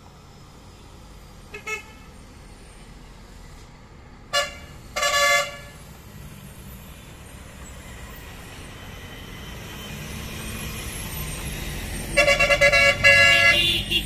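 Heavy-load lorries' air horns sounding on a downhill hairpin: a faint short toot, then two blasts about four and five seconds in, and a rapid string of loud honks near the end. Meanwhile a lorry engine grows louder as the truck comes down and passes.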